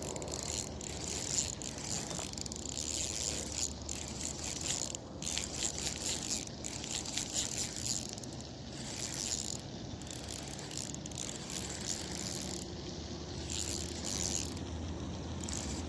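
Fishing reel being cranked to retrieve line, its gears giving a steady run of irregular clicks.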